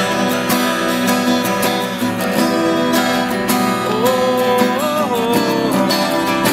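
Two acoustic guitars strummed and picked together in a folk song's instrumental passage. About four seconds in, a male voice joins with a held sung note that bends up and down.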